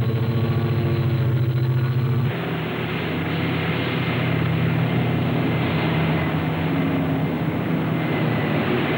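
Haulpak mining dump truck's diesel engine running with a steady low drone. About two seconds in it changes abruptly to a rougher, noisier sound of the truck running.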